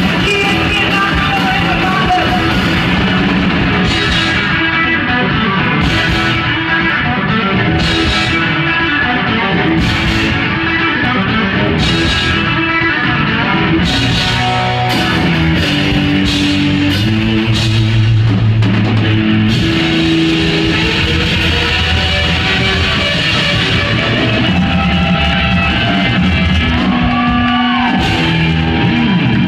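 A rock band playing live and loud: distorted electric guitar over a drum kit, with cymbal crashes about every two seconds through the middle of the passage.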